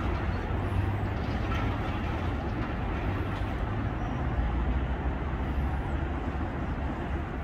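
Steady low rumble and hiss of distant vehicles.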